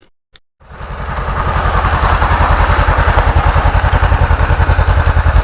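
A small engine starts about half a second in and runs loudly and steadily with a rapid, even pulse of about a dozen beats a second.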